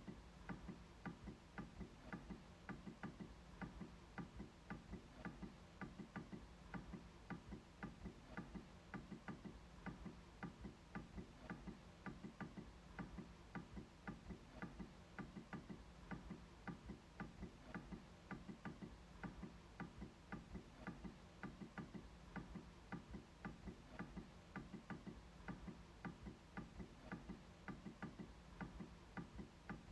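MacBook trackpad being clicked over and over, faint clicks in a steady, even rhythm of about two to three a second.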